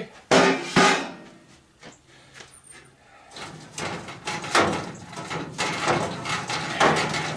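Sheet-metal furnace parts knocking and scraping as they are worked loose by hand: two sharp knocks just after the start, then a run of clattering from about halfway, over a low steady hum.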